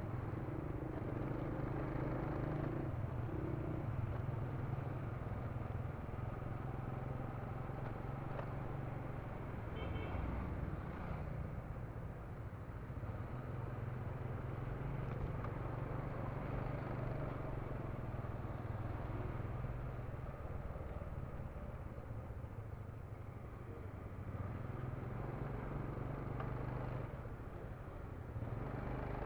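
City street traffic: motorbikes and cars running past in a steady mix, with a low engine hum underneath.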